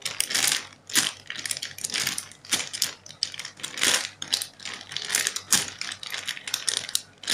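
Crinkling plastic packaging of a Kiibru foam squishy, squeezed and kneaded in both hands: a continuous run of irregular crackles.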